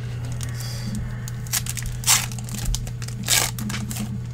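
Trading-card pack wrapper being torn open and crinkled by gloved hands, in three short rips about a second and a half, two seconds and three and a quarter seconds in, over a steady low hum.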